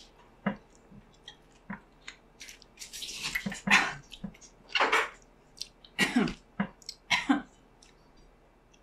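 People eating raw lemons: wet biting, sucking and chewing sounds in short irregular bursts, mixed with brief vocal groans and throat noises at the sourness, dying down near the end.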